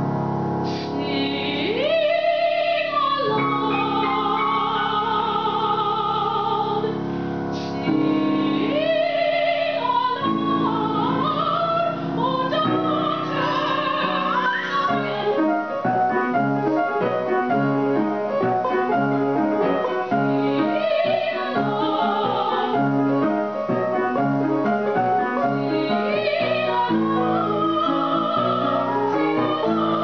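Female classical singer performing an art song with grand piano accompaniment. Long held notes with a wide vibrato open the passage, and about halfway through the piano takes up a steady run of repeated chords under the voice.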